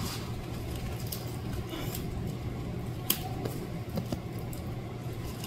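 Quiet knife work on a raw chicken drumstick, the blade cutting and scraping meat away from the bone on a plastic cutting board, with a few faint clicks of the knife against the board, the clearest about three seconds in. A steady low hum runs underneath.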